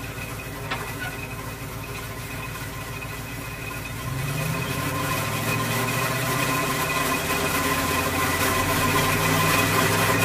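Water-well drilling rig's engine running, revving up about four seconds in and then growing gradually louder, with a steady high-pitched whine over it.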